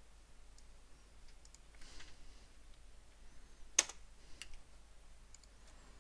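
A few faint computer clicks from a mouse. The sharpest comes a little under four seconds in, with a smaller one just after.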